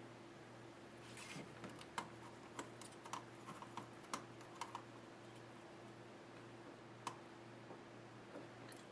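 A scatter of small, faint clicks and taps from soldering work on an amplifier circuit board, most between about one and five seconds in and one more near seven seconds, over a faint steady hum.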